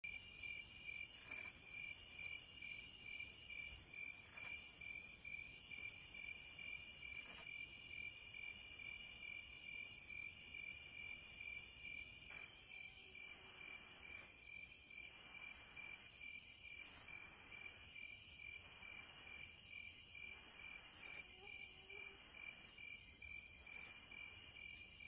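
Night insect chorus: crickets trilling steadily. A higher insect buzz swells and fades about once a second through the second half.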